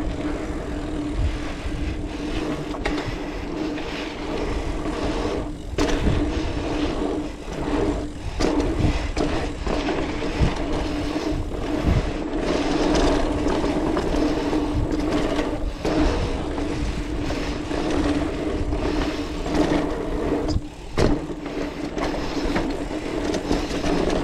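Specialized Rockhopper mountain bike ridden along a dirt trail: tyres rolling over dirt with frequent knocks and rattles from bumps, over a steady hum.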